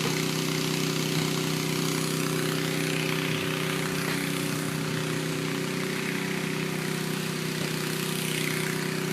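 An engine running steadily at a constant pitch, an even hum under a steady hiss.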